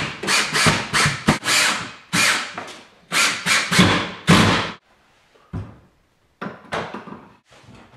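Cordless drill driving a screw through a shelf bracket into a wall stud in a quick run of short bursts for about five seconds. Then a few short knocks as a wooden shelf board is set onto the brackets.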